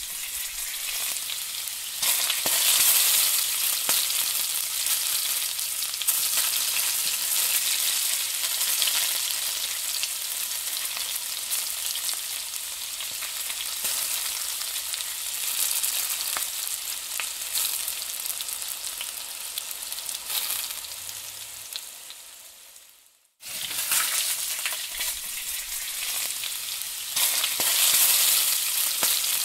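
Sliced onions sizzling and crackling as they fry in hot oil in a metal wok. About three-quarters of the way through the sizzle fades away and breaks off for a moment, then starts again at full strength.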